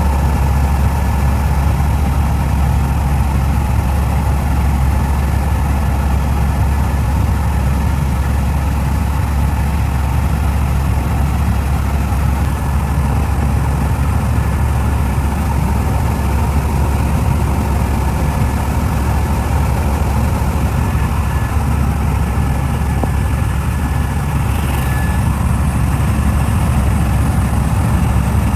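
Helicopter engine and rotor droning steadily in flight, heard from inside the cabin; the noise is loud and heaviest in the deep bass.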